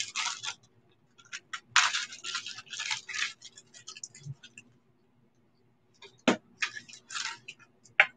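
Rustling and light clinking of costume jewelry being handled and sorted, in short irregular bursts, with a sharper click or knock about six seconds in.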